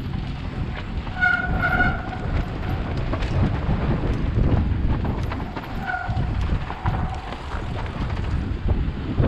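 Downhill mountain bike rolling fast over a dusty, rocky trail: steady tyre and trail rumble with wind buffeting the helmet-level microphone. A horn sounds in two short honks a little over a second in, and once more around six seconds.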